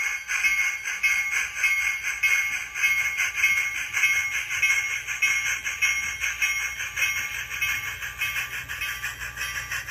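Sound decoder of an HO scale Bachmann three-truck Shay playing through the model's small speaker as the locomotive runs: fast, even steam chuffs with the locomotive bell ringing over them.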